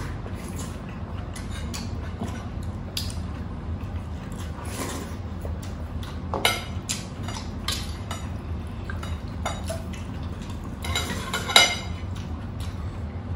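Eating at a table with fingers and spoons: chewing and mouth sounds mixed with scattered clicks and clinks of ceramic plates and bowls, the loudest clinks about six and a half seconds in and near the end.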